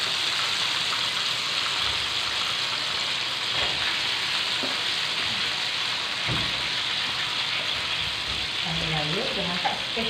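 Spice-coated chicken deep-frying in hot oil in a wok, a steady, even sizzle with a few dull low knocks.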